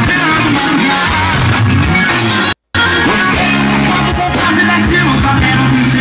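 Music with singing and heavy bass played loudly through a home-built speaker box. It cuts out completely for a moment about two and a half seconds in, then carries on.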